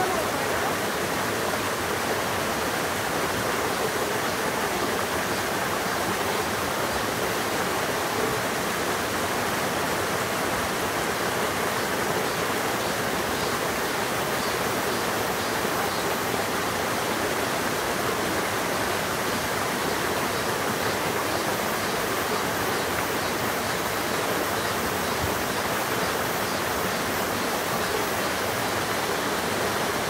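Small waterfall on a rocky mountain stream, with water pouring over boulder ledges into a shallow pool in a steady, unbroken rush and splash.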